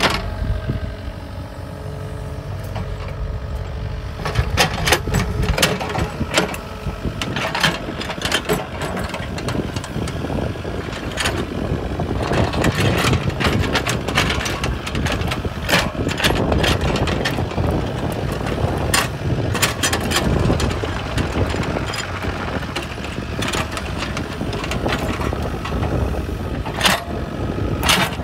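IHI mini excavator's diesel engine running steadily as it works, with frequent sharp knocks and clanks as the bucket digs into and scrapes rocky soil.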